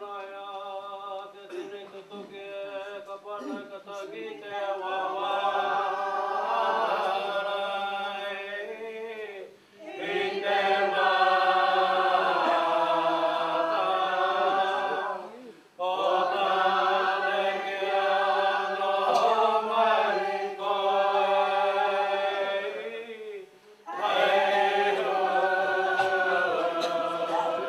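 A group of voices singing a Māori waiata unaccompanied, in long held phrases broken by three short pauses for breath.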